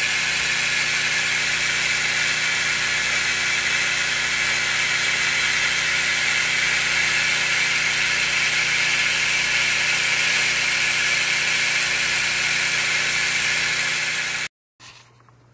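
Creality laser engraver running while it cuts: a steady whirring hiss with a low hum underneath, cutting off abruptly near the end.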